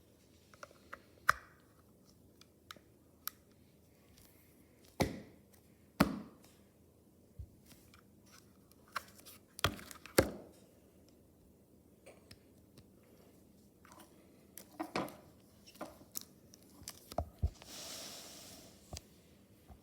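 Hands handling packaging and small objects: scattered clicks, taps and knocks, a few of them louder, with a brief rustle near the end.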